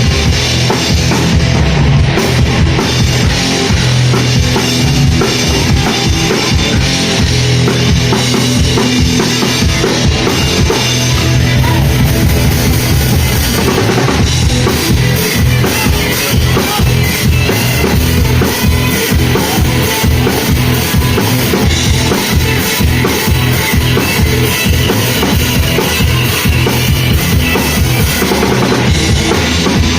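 Rock band playing live, with the drum kit to the fore. From about halfway the drumming turns to quick, even strokes.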